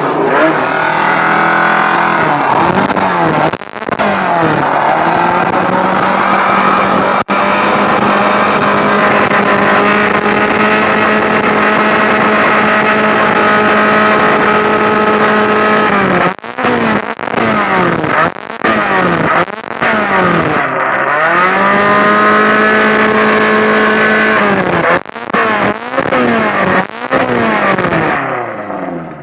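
Alfa Romeo Giulietta SZ's 1600 twin-cam four-cylinder engine driven hard through the gears: it climbs in pitch, breaks briefly at each gear change, and holds high revs for long stretches. A quick run of lifts and blips, falling and rising in pitch, comes a little past halfway.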